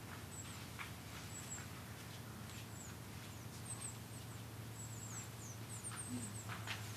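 Outdoor ambience of small songbirds giving many short, high, thin calls, several sliding down in pitch, scattered through the whole stretch over a steady low hum.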